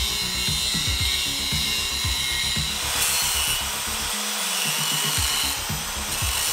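Angle grinder grinding into a thick steel flanged tube, a steady high whine, mixed with background music that has a steady beat about twice a second.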